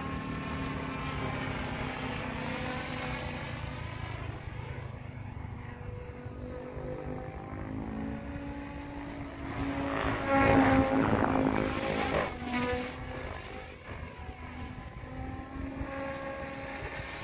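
SAB Goblin RC helicopter in flight: its rotor and motor make a tonal hum that slides up and down in pitch as it manoeuvres. It gets loudest for a couple of seconds a little past the middle, likely as it passes close.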